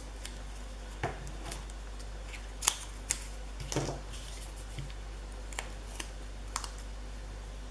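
Scattered small clicks and crackles of paper craft work: a roll of double-sided foam adhesive tape and a die-cut paper piece being handled and pressed into place.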